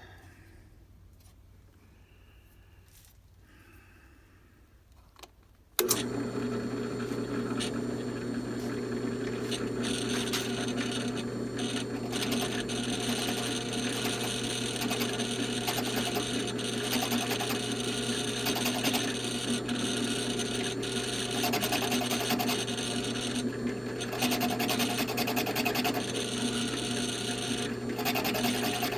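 A power drill switches on suddenly about six seconds in and runs steadily, driving a counterbore cutter into the wooden stock with a constant hum and a rasping cutting noise.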